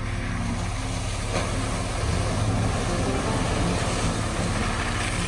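Chevrolet Colorado ZR2 pickup driving through a muddy puddle: its engine runs under a rush of water and mud splashing from the tyres, swelling from about a second and a half in.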